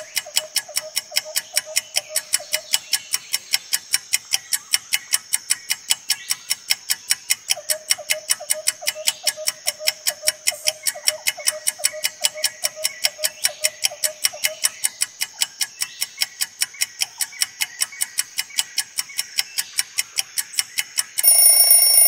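Countdown timer's clock ticking, several even ticks a second, with a faint pulsing tone beneath. About a second before the end an alarm rings loudly as the countdown runs out.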